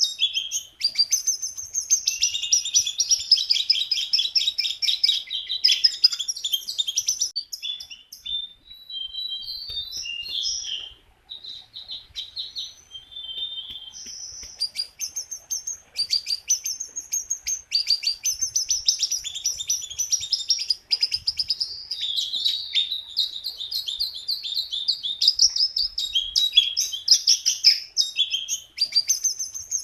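A jongkangan songbird singing nonstop: a fast, high chattering song. It drops to softer, scattered notes about a third of the way through, then picks up again at full strength.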